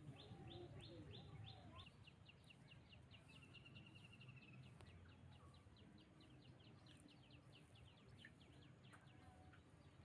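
A bird calling faintly in a long, unbroken series of quick, high, downward-sweeping chirps, spaced wider for the first two seconds and then quicker, over a low steady background rumble.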